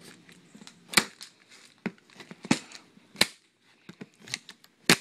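Cardboard shipping box being cut and pried open with a knife: several sharp, irregular snaps with crackling of cardboard in between.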